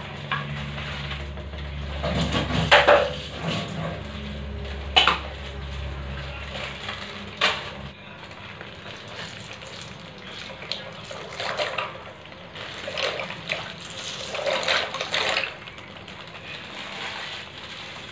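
Liquid splashing and pouring in a stainless steel saucepan as pasta goes in, with several sharp clinks against the pot in the first half. A steady low hum stops about eight seconds in.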